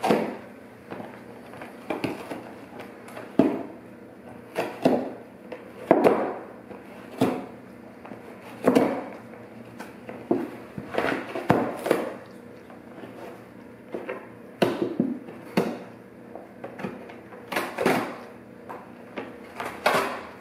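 A golden retriever chewing and tearing at a flattened cereal-box cardboard, with irregular crunching and ripping about once a second.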